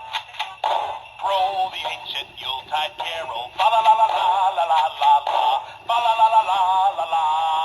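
Gemmy Shotgun Hunter Snowman animatronic singing a Christmas song with backing music through its small built-in speaker. The sound is thin, with little bass.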